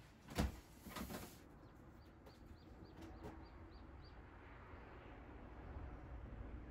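A sudden thump about half a second in, the loudest sound, followed by a brief rustle; then a bird chirps in a quick run of short high notes, about five a second, for a couple of seconds over a faint low hum.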